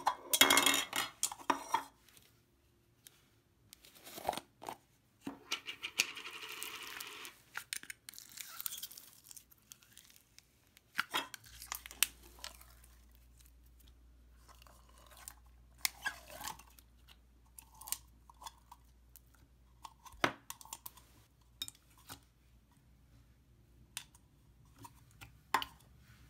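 Sticky slime being handled and dropped into a glass bowl: dense crackles and pops in the first couple of seconds, a rustling stretch a few seconds later, then scattered sharp clicks as a slime studded with foam beads is lowered in.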